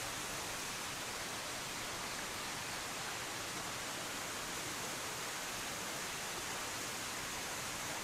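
Steady rush of water from a waterfall and freshwater stream, an even hiss without breaks.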